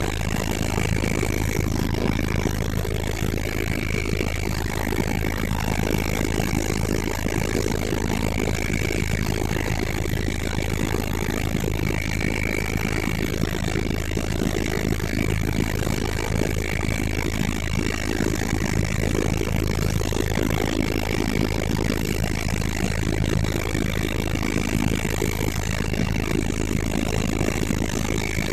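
Helicopter engine and rotor running steadily, a continuous heavy drone with a thin high whine above it.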